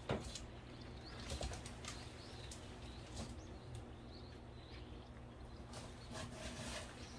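Rustling and light knocks of frozen food packages being handled at a chest freezer: a sharp click just at the start, scattered rustles, and a cluster of rustling near the end, over a faint steady low hum.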